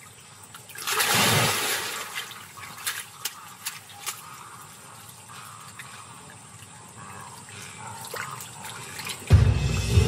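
A caiman shaking a fish in its jaws at the water's surface: one loud splash about a second in, then smaller splashes and drips. Just before the end a boat's motor starts running with a low rumble.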